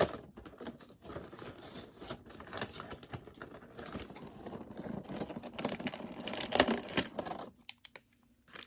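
Cardboard and plastic toy packaging being opened and handled by hand: a quick run of clicks, taps and rustles, loudest about six and a half seconds in, stopping shortly before the end.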